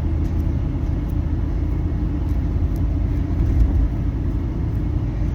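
Steady low rumbling noise, even throughout, with a few faint small clicks.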